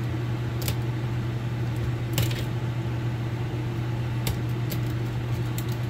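Copper winding from a front-load washer/dryer stator being pried and pulled off, giving a few sharp metallic clicks and scrapes, one about two seconds in, another past four seconds, and several small ticks near the end. Under it runs a steady low hum.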